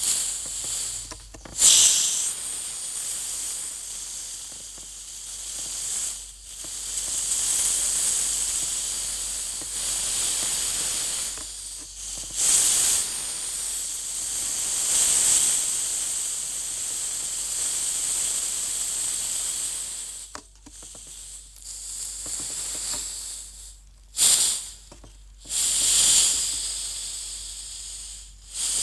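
Opened soda fizzing: a steady high hiss of escaping carbonation that swells and fades. Short, louder hisses of gas rush out near the start, about halfway through and twice near the end.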